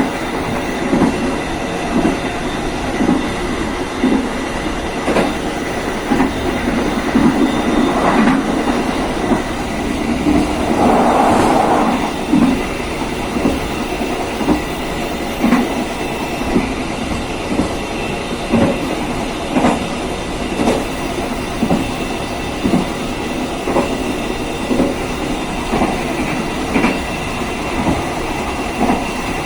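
Passenger train coaches running along the rails, with a steady rumble and regular clicks of the wheels over the track, about one a second. About eleven seconds in, a louder rushing noise swells briefly.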